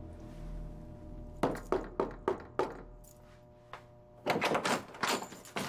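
Knuckles knocking on a wooden apartment door: five knocks, then after a pause a quicker, louder run of knocks. A low, steady music bed sounds underneath.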